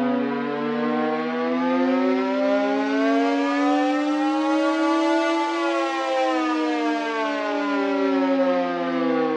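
Civil defense siren wailing, several tones together gliding slowly up for about five seconds and then back down, as an emergency alert signal.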